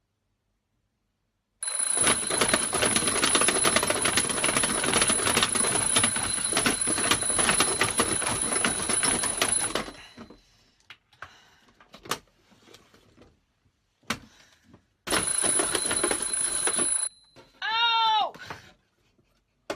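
Alarm clock bell ringing loudly for about eight seconds and cutting off, then a few faint clicks and knocks, then a second burst of ringing lasting about two seconds. Near the end comes a short, high whining cry that rises and falls.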